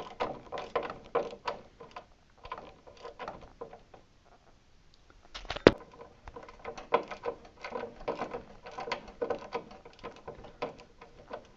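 Irregular metallic clicks and scrapes of a hand tool turning a long screw through a treadmill's metal frame, with one sharp knock about five and a half seconds in.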